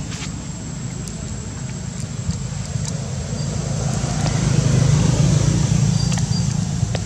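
Low, steady outdoor rumble that swells about four seconds in, with a few faint clicks.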